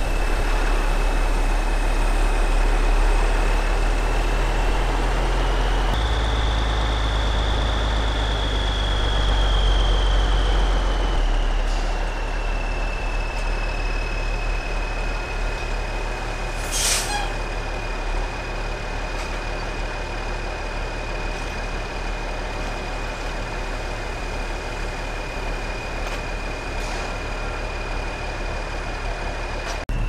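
Heavy diesel truck engine running at low speed, with a steady high whine over its rumble. A short sharp hiss of air about 17 seconds in, from the air brakes.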